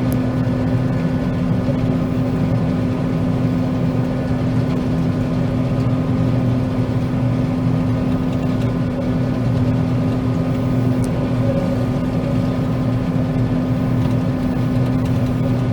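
John Deere 9500 combine running steadily while harvesting soybeans: an even engine and threshing drone with a constant low hum, heard from inside the cab.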